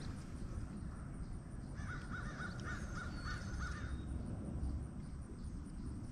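A bird calling, a quick run of about seven short, similar notes about two seconds in, over a steady low rumble.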